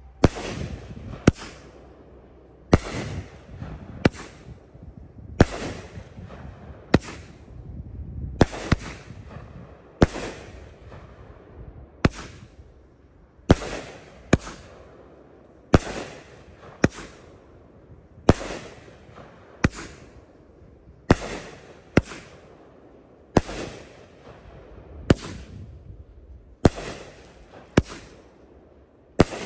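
A 54-shot, 500g Happy Family 'Uncle Sam' consumer firework cake firing shot after shot: sharp bangs about every one to one and a half seconds, each trailing off in a short fading tail.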